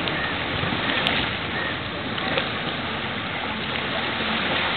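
Steady rushing noise of wind and water at a harbour waterfront, even throughout, with a single faint click about a second in.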